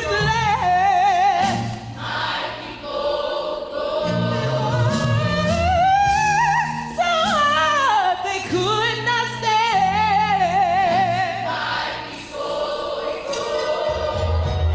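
Music: voices singing a hymn-like song with strong vibrato over a held bass accompaniment.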